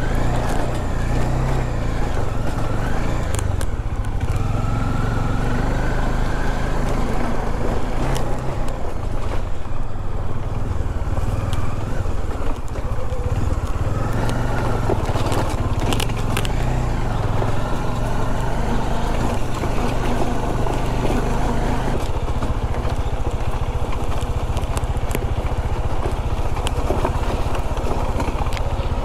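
A motorcycle engine running steadily while the bike is ridden, its pitch shifting a little with the throttle, with scattered clicks and knocks over it.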